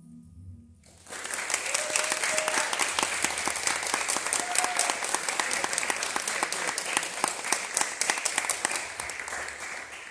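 A small audience applauding. The clapping starts suddenly about a second in, as the last notes die away, and thins out near the end.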